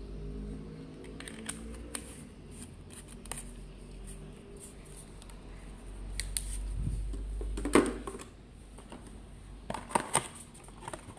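Handling of plastic emergency LED bulbs and their hanging-hook fittings: scattered light clicks and taps, with a sharp plastic clack about eight seconds in and a few more clicks around ten seconds in.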